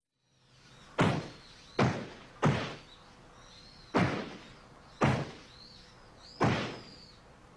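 Six heavy thuds of martial-arts blows landing, at uneven intervals, each ringing out briefly, with faint bird chirps between them.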